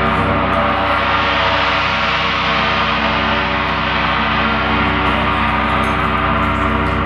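Large hanging gong rubbed and struck with a soft mallet, giving a loud, steady, dense ringing of many overtones that never dies away.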